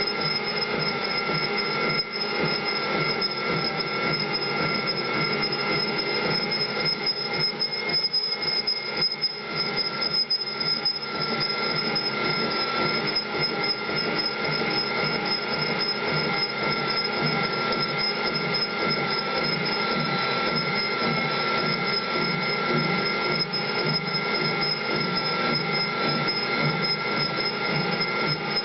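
A metal-cutting machine tool running steadily, with a continuous high-pitched squeal of several steady tones over a rough mechanical noise.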